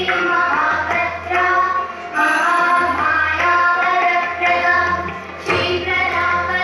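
Indian devotional song played over the hall's loudspeakers: a high voice sings long, gliding notes over instrumental accompaniment, with a new phrase starting about five and a half seconds in.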